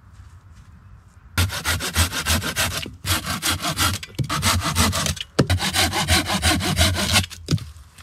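Hand saw cutting through a thin birch pole in quick back-and-forth strokes, about four a second. The strokes start about a second and a half in and come in several bouts with short pauses between them.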